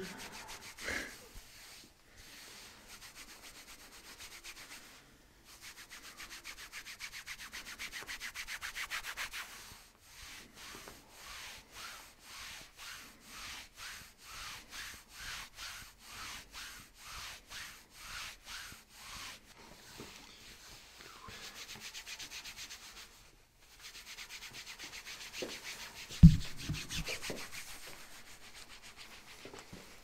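Hands rubbing back and forth over a shirt on a patient's back, close to the microphone: scratchy fabric strokes in a steady rhythm, about two a second through the middle, with one sharp thump about three-quarters of the way through.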